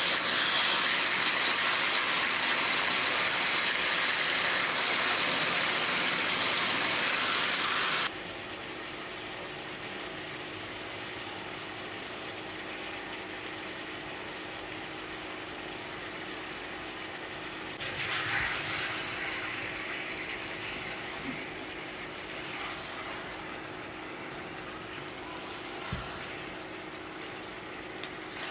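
Chicken pieces and whole tomatoes sizzling hard in hot oil in a steel pot. The sizzle drops abruptly to a quieter frying about eight seconds in, swells again for a couple of seconds around eighteen seconds, and a steady low hum runs underneath the quieter part.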